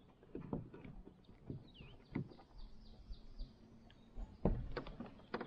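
Scattered knocks and thumps, the loudest about four and a half seconds in, with faint bird chirps behind them.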